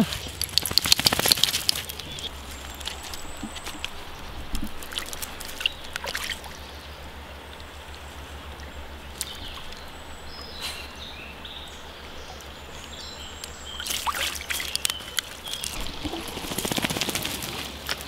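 Shallow creek water trickling steadily, with bursts of louder scuffing and splashing noise about a second in and again near the end.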